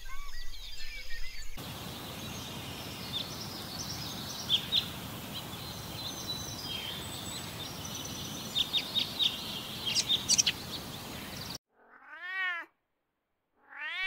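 Short bird calls over a steady hiss of background noise, then a fishing cat meowing twice near the end, each meow rising and falling in pitch.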